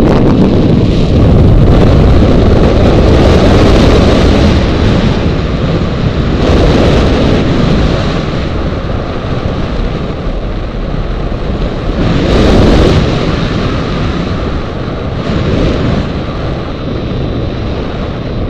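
Airflow rushing over the onboard camera's microphone on a hang glider in flight at around 50 km/h: a loud, low, rumbling wind buffet that swells in gusts, loudest about two-thirds of the way through, and eases slightly near the end.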